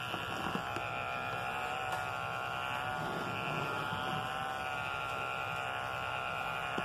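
Electric pet hair clippers running with a steady buzz as they shave a puppy's coat.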